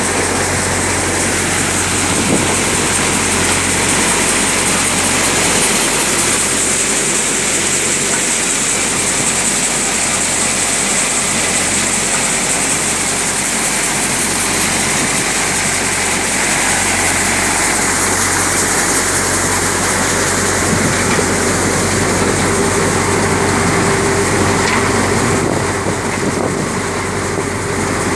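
Multicrop basket thresher running steadily while threshing green moong (mung bean) plants, a continuous even machine drone with a low hum and a high hiss.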